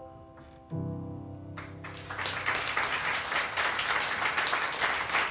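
A closing piano chord struck about a second in, ringing and fading away; about a second later an audience starts applauding, the clapping swelling and carrying on steadily.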